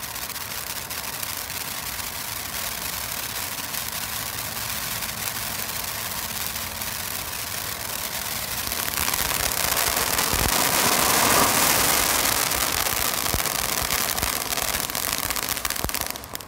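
Large ground fountain firework spraying sparks with a steady hiss, swelling louder about two-thirds of the way through with a few crackles, then cutting off at the very end as it burns out.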